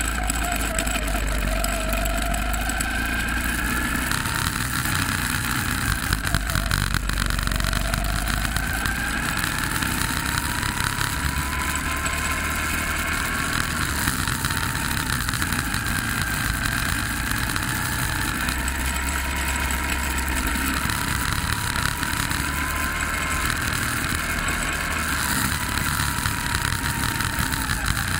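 Go-kart motor running on track, its pitch rising and falling again and again as the kart speeds up and slows, over a steady low rumble and rattle.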